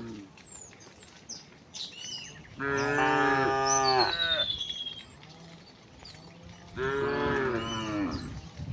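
Cows mooing: two long calls, one about three seconds in and another near the end.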